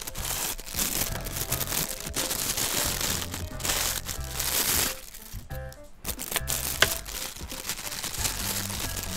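Thin plastic packaging crinkling and rustling in the hands as a charging cable is unwrapped from its bag, with one sharp click about two-thirds of the way through. Background music plays underneath.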